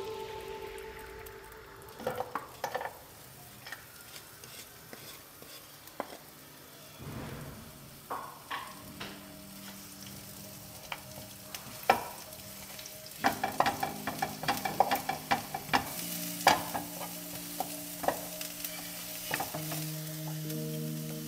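Onion and garlic sizzling in hot oil in a nonstick frying pan, with a wooden spatula knocking and scraping against the pan as they are stirred. The sizzling grows in the second half.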